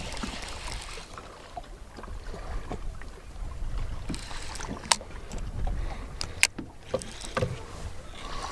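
Wind rumbling on the microphone, with a few sharp clicks and knocks, the clearest about five and six and a half seconds in.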